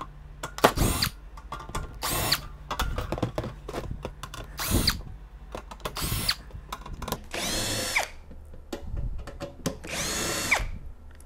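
Cordless drill-driver running in about six short bursts, each spinning up and winding down, the last two longer, as it backs the screws out of a welding machine's sheet-metal case.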